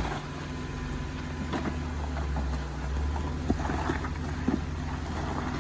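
Jeep Wrangler JK's engine running low and steady while crawling over a rough, rutted trail, the rumble swelling for a moment about two seconds in, with scattered knocks and clicks over it.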